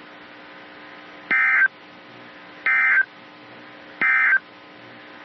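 Three short bursts of EAS/SAME digital data tones from a weather radio broadcast, each about a third of a second long and about a second and a half apart, over a steady radio hiss and faint hum. This is the end-of-message code that closes the severe thunderstorm warning.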